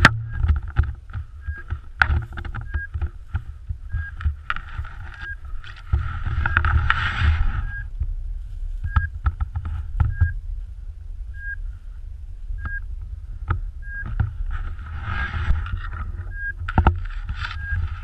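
Short, high electronic beeps from a dog's beeper collar repeat at one pitch, about twice a second at first, slowing to about one a second in the middle, then quickening again near the end. Under them runs a low rumble of wind and handling on the microphone, with crunching and brushing as the camera moves through snow and dry grass.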